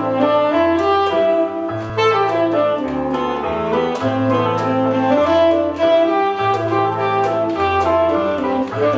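Tenor saxophone playing a melody over chords on an electric stage piano, with low bass notes that change about once a second: live jazzy pop.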